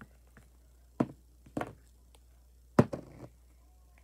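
Small plastic slime tubs being set down on a tabletop: three sharp knocks, about a second in, a little later, and near three seconds in, the last followed by a lighter tap.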